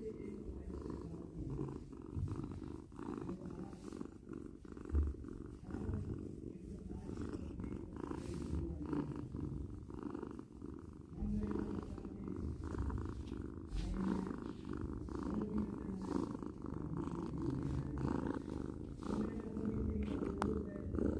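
Domestic cat purring continuously, a low rumble that swells and eases slightly in loudness.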